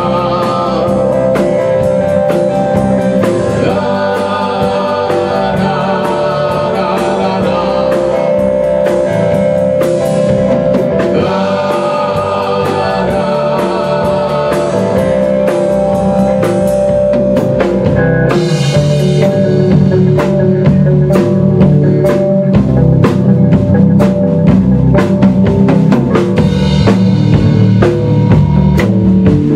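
Live rock band playing an instrumental passage: electric guitar and electric bass over a full drum kit. The playing grows a little louder about two thirds of the way through.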